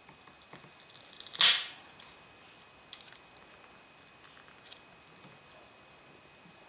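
Glued-in iPhone 4 battery being pried against its adhesive: a run of small clicks and crackles, then one loud, short crackling snap about a second and a half in, followed by scattered light ticks.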